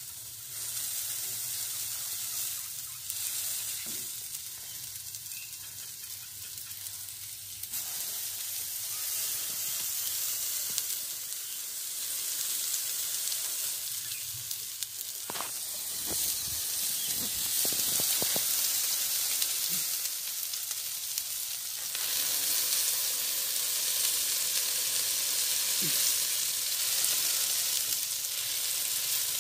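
Beef burger patties sizzling steadily on a hot barbecue griddle plate as a metal spatula presses them flat, with a few short clicks about halfway through.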